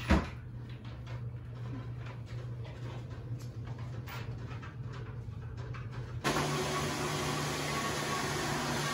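A sharp knock right at the start, then a steady low hum with faint clicks and handling noise. About six seconds in, it changes abruptly to a louder, steady rushing noise with a hum, like a fan or ventilation running.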